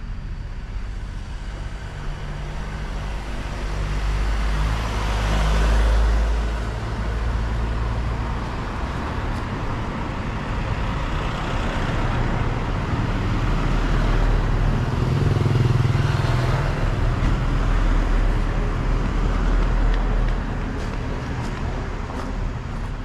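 Street traffic: cars and vans passing close by, one swelling and fading about five seconds in and more passing between about thirteen and twenty seconds in, over a steady low rumble.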